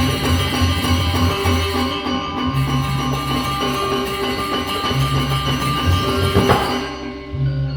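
Background music led by guitar, with a steady rhythmic bass line.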